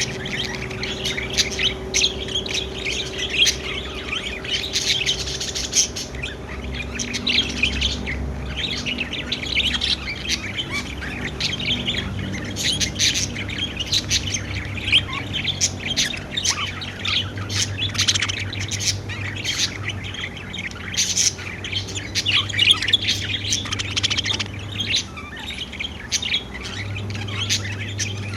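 Pet budgerigars (budgies) chirping and squawking continuously, a dense overlapping chatter of short calls. A low steady hum runs underneath.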